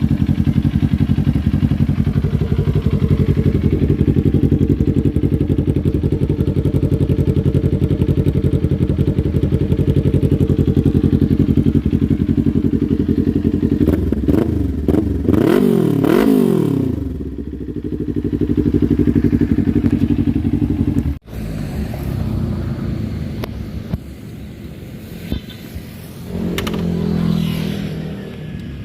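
Kawasaki Ninja 400's parallel-twin engine running through an Akrapovic full exhaust, idling steadily and loud. About halfway through it is revved up and back down several times in quick succession. After a sudden break the engine is heard quieter and less steady.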